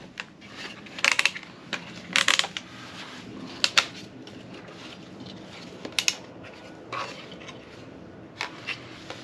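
Hard plastic portable work light and its stand being handled on a tabletop: irregular clicks, clacks and knocks about once a second, as its folding panels and parts are moved and set down.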